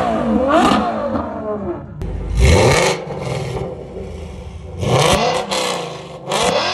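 A Ferrari FF's V12 revving as it pulls away, its pitch climbing, dipping and climbing again, then fading. About two seconds in, a Ford Mustang's exhaust takes over with three short, loud revs.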